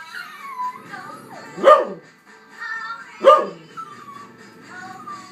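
Pet dog barking twice, about a second and a half apart, with thin whines in between, as she waits for her owner to come in.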